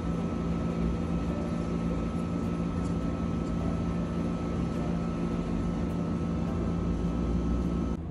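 Steady mechanical hum with a constant tone, cutting off suddenly near the end.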